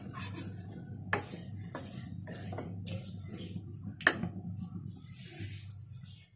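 A slotted spatula stirs and scrapes mutton and fried bitter gourd in an aluminium pot, knocking against the pot several times, the sharpest knock about four seconds in. Under the knocks runs a steady sizzle of the meat and gourd frying in oil.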